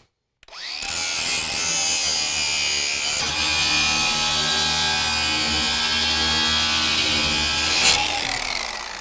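Electric belt file (power file) spinning up, then its belt grinding on steel from about three seconds in, and winding down near the end.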